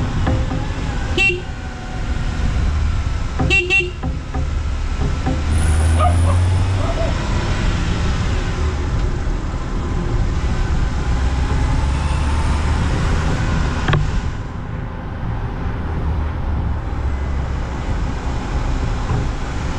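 Open-top Moke car driving, with a steady low rumble of engine, wind and road noise. Short car-horn toots sound about a second in and twice in quick succession around three and a half seconds in.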